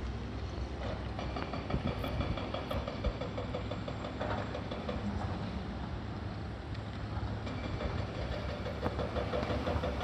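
An engine running, with a fast rhythmic clatter over a steady low rumble; the clatter comes and goes, strongest in the first half and again near the end.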